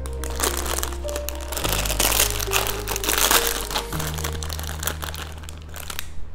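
Background music with held chords that change every second or two, over the crinkling and rustling of a small plastic bag of toy parts being handled.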